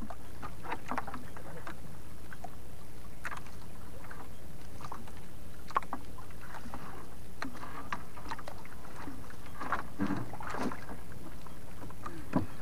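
Water splashing and lapping around a small wooden fishing boat, with scattered knocks against the hull, over a steady low rumble.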